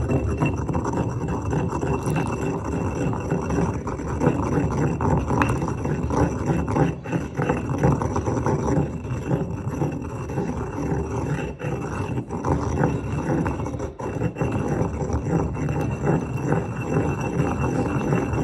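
A stone pestle grinding and scraping continuously round a granite molcajete. It is a rough, gritty stone-on-stone sound made of many small irregular strokes.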